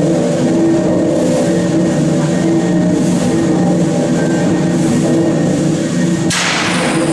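The River Don Engine, a 12,000 hp three-cylinder reversing rolling-mill steam engine, running with a steady droning hum and rumble. About six seconds in, a loud rush of steam hiss comes in over it.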